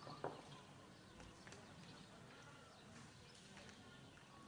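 Near silence: faint outdoor background noise with a few soft clicks, the sharpest just after the start.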